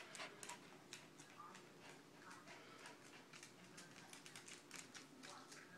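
Faint, irregular clicking of a small dog's and kittens' claws scampering on a hardwood floor, several clicks a second.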